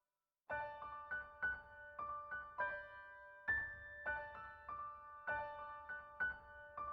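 Gentle solo piano background music, coming in about half a second in, with notes struck about twice a second and each left ringing.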